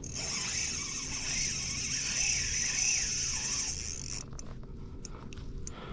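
Spinning reel buzzing steadily while a hooked fish, which the angler takes for a lake trout, is fought on the line; the buzz cuts off abruptly about four seconds in.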